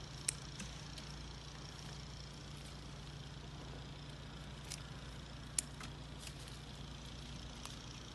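A few sharp snaps as sorrel (roselle) calyxes are picked off the stems by hand, over a steady low hum.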